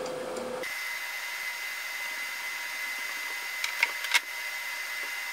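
Socket ratchet tightening the nut on a hydraulic cylinder's piston rod, giving a few sharp clicks near the end over a steady hiss with a faint high tone.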